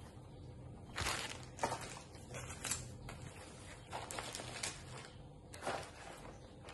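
Plastic bags crinkling and small tools rustling as bagged kit pieces are packed into a soft fabric case and the case is folded shut: a string of short, irregular rustles and scrapes.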